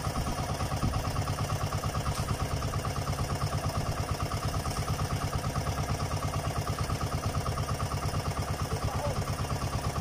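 Outrigger fishing boat's engine running steadily with a fast, even chugging beat.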